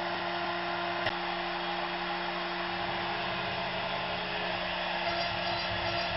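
A CNC router's spindle running steadily, giving a constant whirring hum with a steady whine. There is a single light click about a second in.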